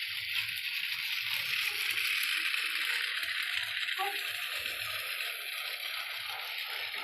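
Toy train running, its small motor and gears whirring steadily with a rattle from the wheels on the track.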